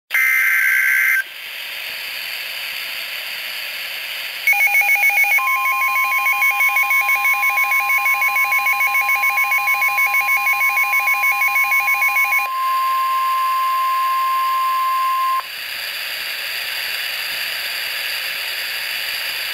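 NOAA Weather Radio alert sequence: a short burst of warbling SAME data tones, then radio hiss, then the steady 1050 Hz warning alarm tone for about ten seconds, which stops abruptly. For most of the tone's first seven seconds, a fast pulsing electronic beeping sounds over it.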